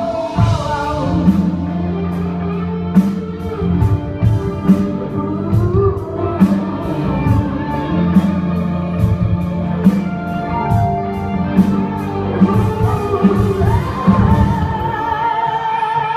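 A pop song played by a band with orchestra, with singing over held melodic lines, a low bass, and a steady beat of drum and cymbal hits.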